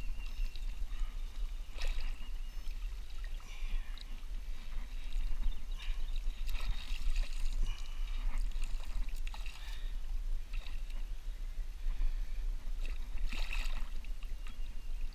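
Shallow water splashing and swishing as a person wades and grabs by hand through tangled weeds to free and land a hooked bass, with scattered small clicks and rustles.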